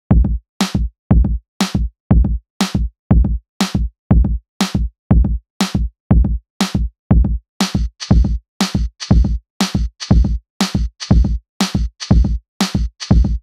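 Electronic background music: a drum-machine beat of kick and snare hits, about two beats a second. About halfway through, a hissing layer joins between the hits.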